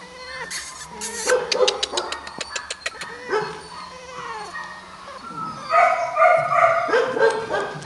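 Maltese puppies whimpering and yipping: short, squeaky calls that bend up and down in pitch, with a quick run of sharp clicks in the first few seconds and louder, longer calls near the end.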